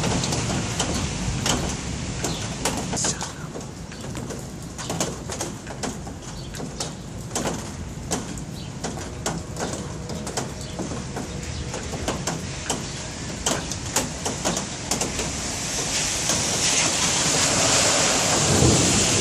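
Thunderstorm outdoors: a rain-like hiss with many short, sharp ticks, and a low rumble that swells near the end.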